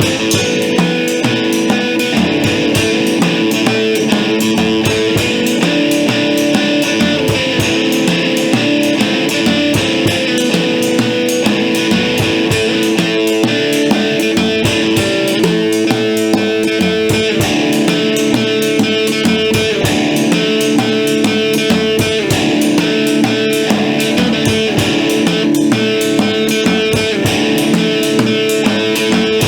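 A band playing loud instrumental rock: guitar chords ringing over a busy drum-kit beat.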